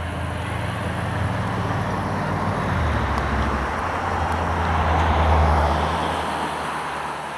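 Low, uneven rumble of wind buffeting the camera microphone, with a hiss that swells to a peak about five seconds in and then eases.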